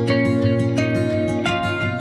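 Background music with plucked acoustic guitar, steady notes with new plucks roughly every half second.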